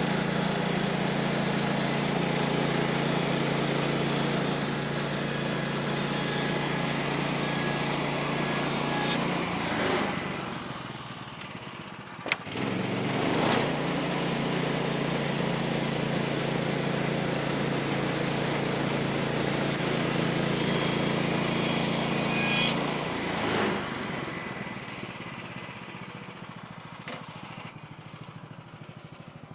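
Small gasoline engine of a portable bandsaw sawmill running steadily at speed. It drops away about ten seconds in, a sharp click follows, and it comes back up before dropping again a little past twenty seconds and fading lower near the end.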